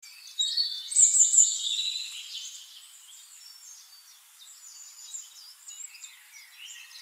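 Birds chirping and whistling, loudest in the first two seconds, then a quieter, ongoing chatter of calls.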